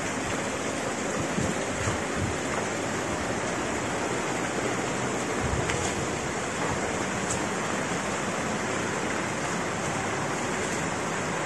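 A steady, even rushing noise with no distinct events, like running water.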